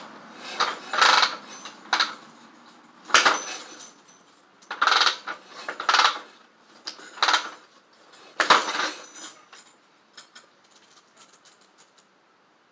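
1947 Harley-Davidson knucklehead V-twin being kick-started: about eight sharp strokes roughly a second apart as the engine is turned over without catching, then a few light clicks.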